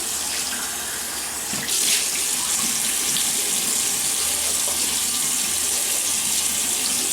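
Tap water running steadily into a sink, a little louder about two seconds in, as the face is wetted for a shave.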